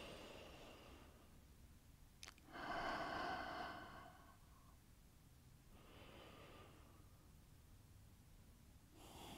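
A woman breathing slowly and deeply, about four breaths spaced a few seconds apart. The loudest is a long, sigh-like exhale about three seconds in, with a short click just before it.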